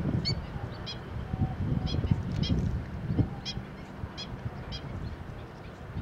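Black-winged stilt giving short, sharp, nasal kek calls, about two a second, over a steady low rumble. A thump sounds right at the start.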